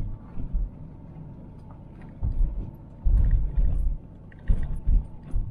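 A camper van driving up a steep, narrow road: a steady low engine and road rumble, broken by irregular heavy low thumps, the longest about two to four seconds in and a few short ones near the end.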